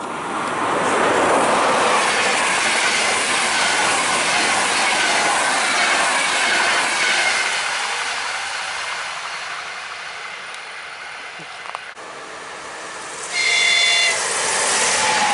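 Express passenger train of coaches passing at speed, a loud rush of wheels on rail that slowly fades as it pulls away. After a cut, a Leo Express Stadler FLIRT electric unit approaches and sounds its horn once, a blast of about a second near the end.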